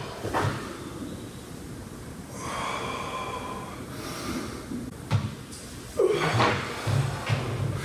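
A person exhaling forcefully through the nose and mouth several times while straining through a Pilates side bend and twist on a reformer's short box. The strongest breaths come about six seconds in. A brief higher tone sounds near the middle.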